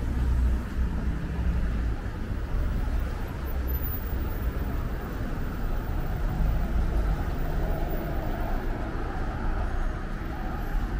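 Steady city road traffic: passing cars with a low engine rumble and tyre noise.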